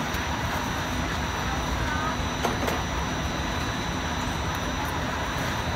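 Steady background din of a busy street market: indistinct crowd chatter over a constant low rumble, with a couple of faint clicks about two and a half seconds in.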